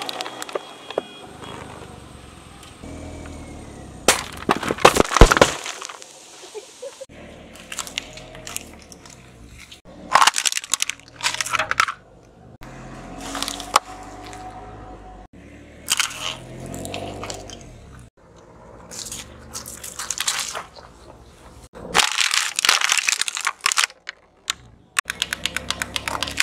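A car tyre rolling slowly over objects and crushing them one after another: drink cans bursting and crumpling, then crunchy and plastic items snapping under the weight. About five separate bursts of cracking and crunching with quieter gaps between, the loudest about five seconds in.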